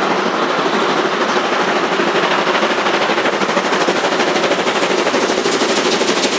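Class 41 steam locomotive working hard at speed, its exhaust a rapid, steady stream of chuffs.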